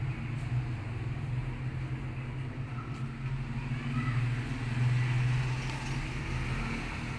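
Domestic tabby cat purring steadily while being stroked, a continuous low rumble that swells and eases every second or two.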